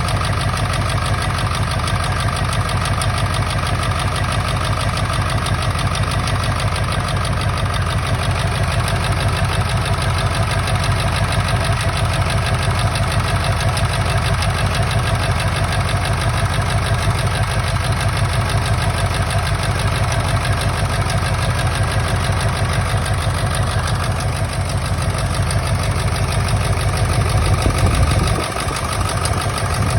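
Ford 7.3 Powerstroke turbo-diesel V8 idling with a misfire from its injectors, a steady diesel clatter. Its level swells slightly, then dips briefly near the end.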